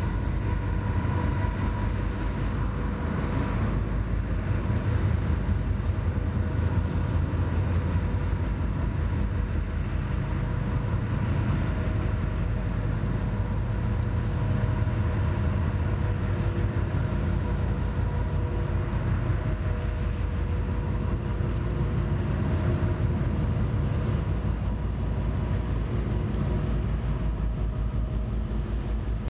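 Ship's engines droning steadily, with wind rumbling on the microphone.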